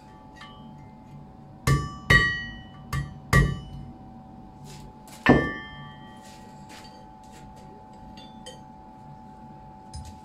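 Blacksmith's hammer striking on the anvil: four ringing metallic blows in two quick pairs, then a fifth about two seconds later, over a steady hum.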